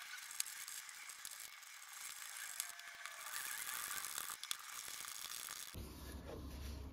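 Small screws being turned into a 3D-printed plastic enclosure with a precision screwdriver: faint scraping and ticking with a few sharp clicks. Near the end a low steady hum comes in.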